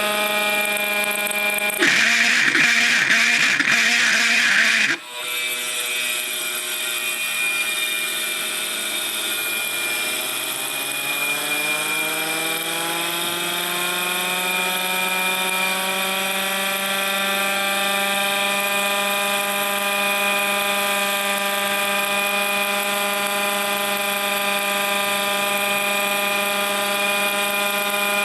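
MiniMite air raid siren with a cracked plastic rotor and a split chopper shaft that slips on the motor shaft. A loud, harsh rattle lasts about three seconds and cuts off suddenly; then the siren's tone winds slowly upward over about ten seconds and holds steady, as the loose chopper tries to catch up with the full-speed motor.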